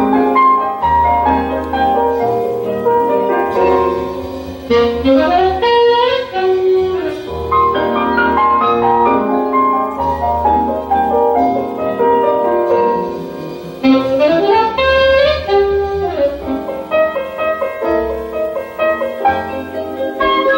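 Music played back from a vinyl record on a VPI turntable: a melody line with some sliding notes over a bass part, playing continuously.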